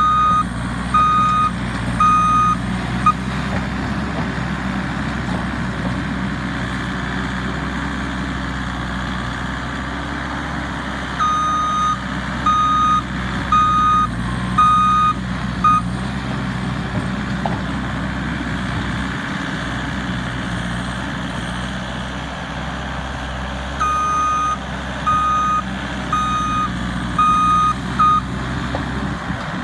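New Holland C238 compact track loader's diesel engine running steadily as it works. Its reversing alarm beeps in three runs of several beeps each, about one beep a second, while the loader backs up between pushes.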